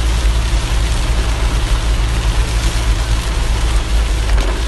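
Inside a moving car in heavy rain: a steady low rumble from the car and the wet road, with an even hiss of rain on the car.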